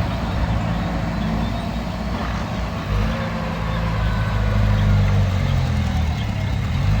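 Heavy diesel engine running at low speed, its pitch shifting and its level rising a little from about three seconds in, loudest near five seconds in.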